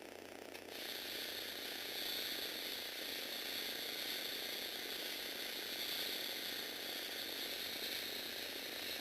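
Lego Technic shake table running: its electric motor drives plastic gears with a steady, clattering whir. It gets louder about a second in and then holds steady.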